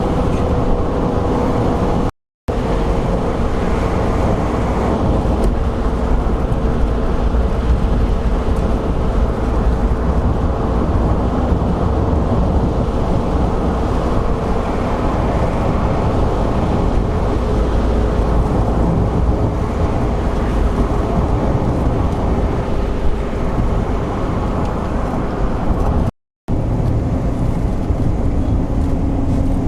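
A car driving, giving steady engine and road noise with an engine hum that drifts slowly lower. The sound cuts out briefly twice.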